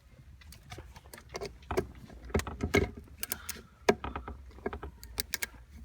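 Irregular metallic clicks and rattles of small hand tools: Torx bits and a driver being handled and tried in a screw, the loudest knocks a few seconds in.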